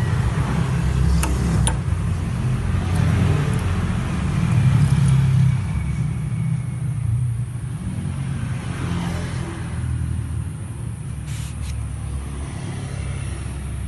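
Drill bit sharpening machine running: a steady motor hum with the hiss of the grinding stone on the bit, and a few sharp clicks in the first couple of seconds. The sound gets quieter about halfway through.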